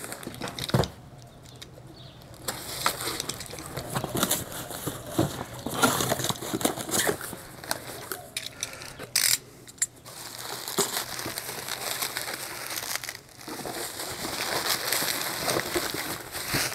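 Cardboard box being cut open and bubble-wrapped parts handled: irregular rustling and crinkling of plastic bubble wrap and cardboard, with scattered clicks and a sharp click about a second in.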